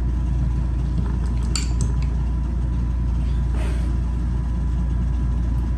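Forks and spoons clinking against ceramic bowls and plates a few times, over a steady low hum.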